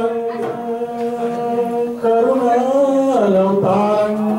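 A man singing a Hindu devotional bhajan into a microphone in long, drawn-out chant-like notes. The pitch drops about three seconds in and climbs back shortly after.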